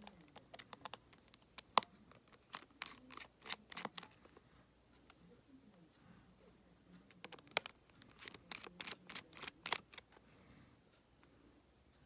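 Light, sharp clicks and taps of a small screwdriver, tweezers and tiny screws on an opened iPhone 7, coming in two quick clusters, the first near the start and the second about seven seconds in.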